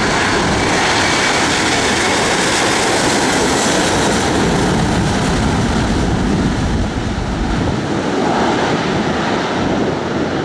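Aircraft engines running loud and steady as a plane passes close by the runway, with a faint tone that slowly drops in pitch; the noise eases off a little in the last few seconds.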